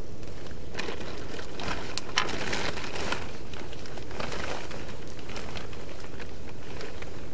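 A plastic sheet and a blanket rustling and crinkling as someone wraps them around himself and pulls them over, busiest in the first half, with one sharp click about two seconds in. A steady low rumble runs underneath throughout.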